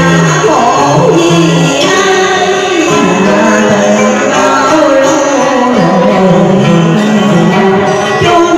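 Cải lương (Vietnamese reformed opera) singing: a melodic vocal line with gliding, ornamented pitch over instrumental accompaniment.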